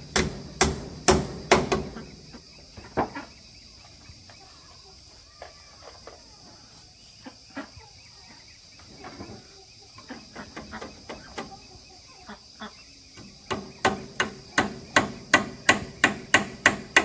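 Hammer driving nails into a wooden railing post: a run of sharp blows about two a second at the start, a quieter stretch with only a few light taps, then another steady run of blows from about thirteen seconds in.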